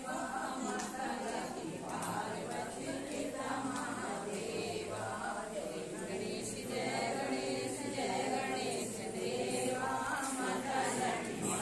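A group of voices singing a Hindu devotional chant together, continuing without a break.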